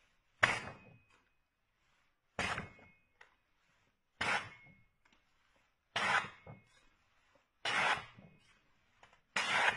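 Tramontina 10-inch bullnose butcher knife slicing through a sheet of paper: six short papery swishes, one cut about every two seconds.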